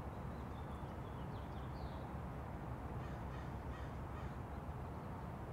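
Faint bird calls, a few short ones, over a steady low background noise.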